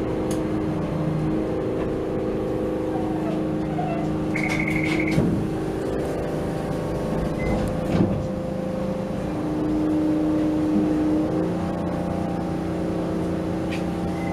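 Steady electrical hum of a Toei Arakawa Line streetcar standing at a stop, heard inside the driver's cab as several steady tones. A short run of quick electronic beeps sounds about four seconds in.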